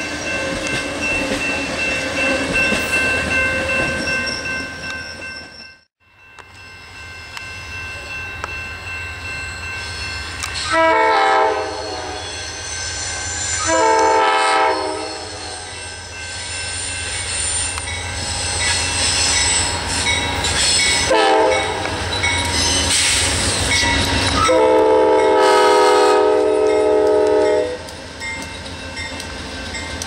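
Bilevel passenger cars rolling past on steel rails. After a short break about six seconds in, an approaching Amtrak P42 diesel locomotive rumbles and sounds its chime horn four times: two long blasts, a short one, and a final long one. This is the standard warning pattern for a grade crossing.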